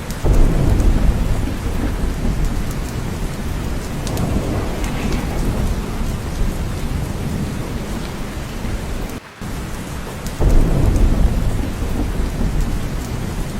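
Steady rain with thunder: a low rumble swells right at the start and another about ten seconds in.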